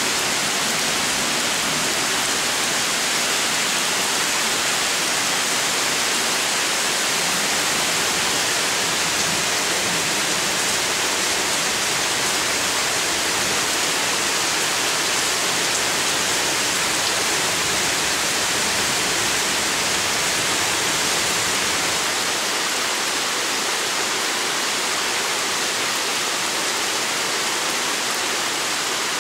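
Heavy rain pouring down steadily: a continuous dense hiss of drops, without a break.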